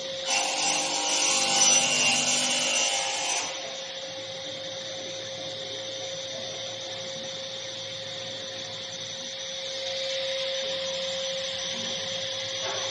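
Circular saw head of an AKM2060D ATC CNC router cutting through a wood board for about three and a half seconds. After the cut the saw spindle runs on without load, a steady machine hum with a constant tone.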